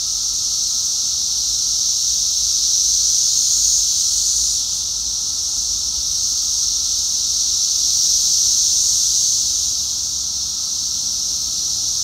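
Loud chorus of Brood X periodical cicadas (Magicicada), masses of them shaking their timbals in a steady, high-pitched drone that slowly swells and fades, with a fainter lower tone underneath.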